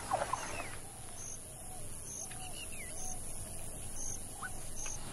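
Natural ambience of birds and insects. A cluster of short chirping calls comes in the first second, then a high short chirp repeats about once a second over a steady high insect hiss, with a few soft bird calls between.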